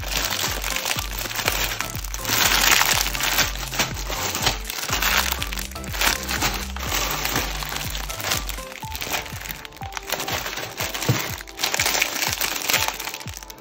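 Plastic bags full of loose nano building bricks crinkling and rustling as they are handled, with small clicks from the bricks inside. Background music with a steady low beat plays underneath; the bass drops out about nine seconds in.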